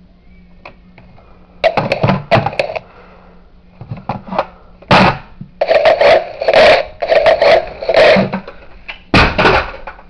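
Pet parrot calling in a string of short, loud bursts, a few at first and then a run of four close together, with one more near the end.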